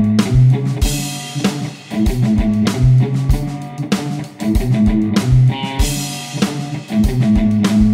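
Background music: a drum kit keeping a steady beat under guitar.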